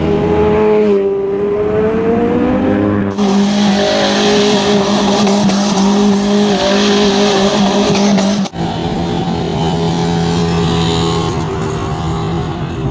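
Car engine held at high, steady revs with tyre squeal from a car spinning and drifting, in clips that cut abruptly about three seconds in and again after eight seconds.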